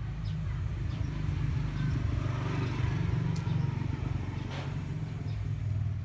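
A motor vehicle's engine rumbling close by, growing louder through the middle and easing off near the end, with a single sharp click a little past halfway.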